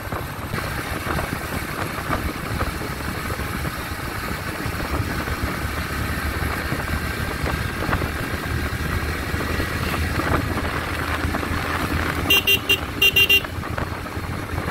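Bajaj NS125's single-cylinder engine running hard as the motorcycle pulls toward about 80 km/h, with steady road noise. About twelve seconds in comes a quick run of four short horn beeps.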